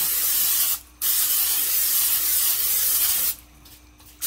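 Olive oil cooking spray hissing into a pan in bursts. One burst stops under a second in, a long one of about two seconds follows, and a short one comes right at the end.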